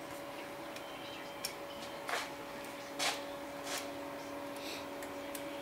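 A few separate light metallic clicks and taps of hand tools and bolts against the shift lever hardware as it is fitted, over a faint steady hum.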